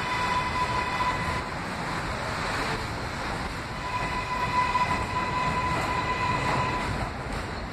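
R143 subway train rolling slowly, a steady rumble with a steady high-pitched whine that drops out about a second and a half in and comes back about halfway through.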